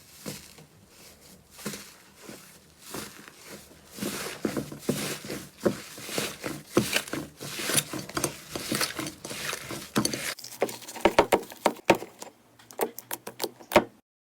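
Slime being squeezed and kneaded by hand: a dense run of small sticky clicks, crackles and pops. Near the end these thin to a few separate sharp pops.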